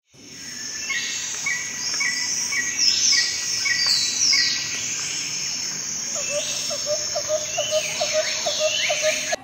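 Several birds chirping and calling together: overlapping high, falling chirps and a run of evenly repeated chirps, joined from about six seconds in by a quick series of lower, repeated notes.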